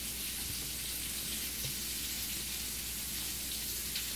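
A steady, even hiss over a constant low hum, with a couple of faint ticks near the end.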